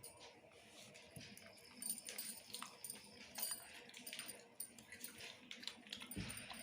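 Faint eating sounds: soft chewing and small mouth clicks, with scattered light clicks from handling food, and a brief low thump near the end.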